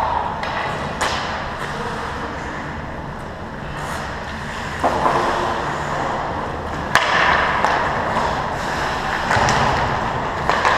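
Ice hockey play: skate blades scraping the ice, with sharp clacks of stick and puck, the loudest about seven seconds in, another about a second in.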